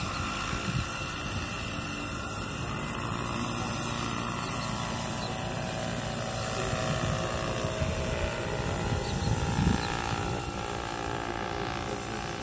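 Radio-controlled scale model CH-47 Chinook tandem-rotor helicopter in flight. Its rotors and drive give a steady high whine over a low rotor buzz, and the sound fades somewhat near the end as the model climbs away.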